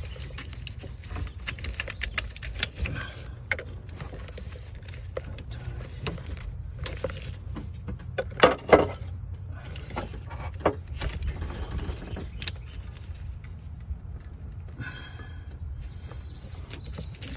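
Scattered small clicks and rattles of gloved hands working an electrical connector and its plastic clip loose in an engine bay, with two sharper clicks about eight and a half seconds in. A steady low rumble runs underneath.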